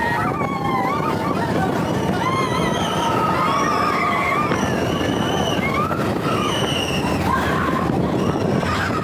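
Big Thunder Mountain Railroad mine-train roller coaster running along its track, a steady loud rattle and rumble mixed with rushing wind. Riders whoop and yell over it in long cries that rise and fall.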